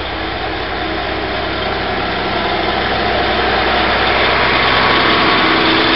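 DR2700-class diesel railcar engines running as the train pulls away from the platform, the sound growing slowly louder with a steady low hum under it.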